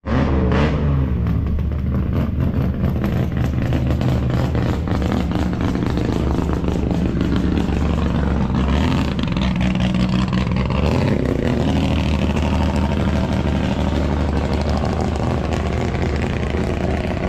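A performance car engine is revved up and held at high revs, loud through its exhaust.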